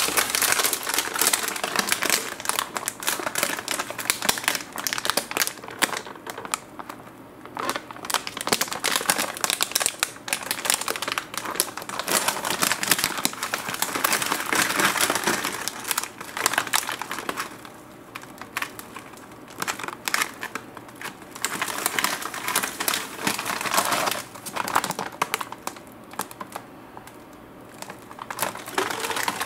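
Plastic cookie packet crinkling and crackling as it is handled and turned over in the hands, in bursts with a few quieter pauses.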